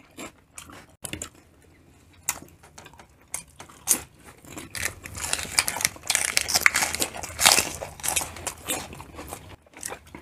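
Close-miked eating: scattered mouth clicks and smacks, then from about halfway a dense stretch of crunching and chewing as crisp lettuce leaves are bitten.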